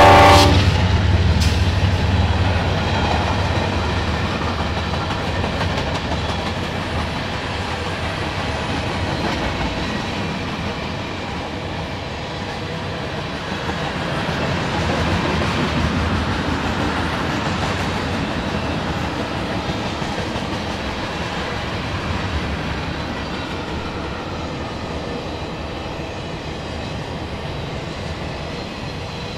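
Freight train cars, tank cars then autoracks, rolling past on steel wheels with a steady rolling noise that slowly grows fainter. The last of a diesel locomotive's horn chord cuts off about half a second in.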